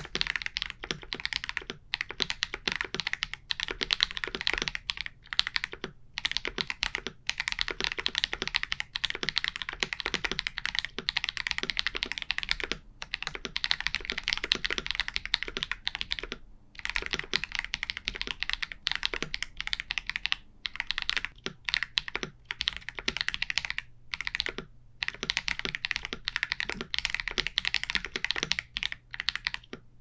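Fast, continuous typing on a KBD67 Lite R3 mechanical keyboard fitted with Akko Lavender Purple tactile switches lubed with Krytox 205g0, with a few brief pauses between bursts of keystrokes.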